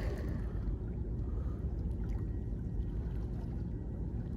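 Steady low rumble of wind on the microphone, with faint sea water lapping at the rocks.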